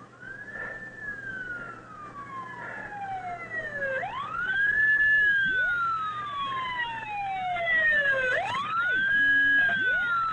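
Police car sirens wailing, each cycle rising quickly in pitch and then falling slowly over about four seconds. More sirens join about four seconds in and grow louder as backup units arrive after an 'officer needs help' call.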